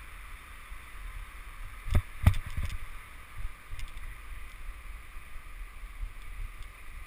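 Bicycle ride picked up by a bike-mounted camera: steady rumble and wind on the microphone, with a cluster of sharp knocks about two seconds in as the bike jolts from the street into a building's entrance hall.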